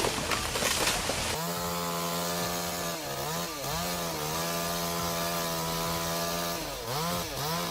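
Two-stroke chainsaw running at high revs, its pitch dipping briefly and recovering twice: once about three seconds in and once near the end. It is preceded by about a second and a half of rough crackling noise.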